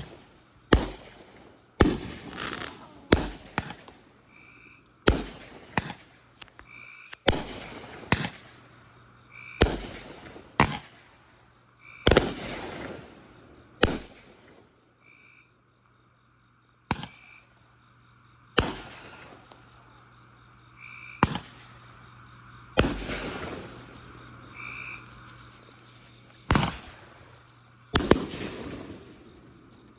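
Fireworks going off in a steady series of sharp bangs, about one every one to two seconds, many trailing off in a crackle.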